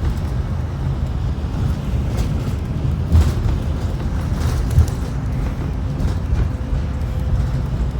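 Cabin of a 2018 Blue Bird Vision school bus running with its propane-fuelled Ford V10: a steady low engine and road rumble, with two thumps about three and five seconds in.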